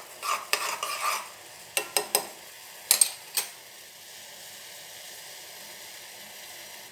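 A spoon clinks and scrapes in a pan of water boiling with spices for masala tea, about ten sharp taps in the first three and a half seconds. After that only the steady hiss of the boiling pot is heard.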